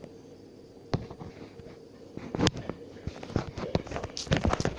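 Dog lapping water from a bowl: a couple of scattered wet clicks, then a quick, irregular run of laps over the last two seconds or so.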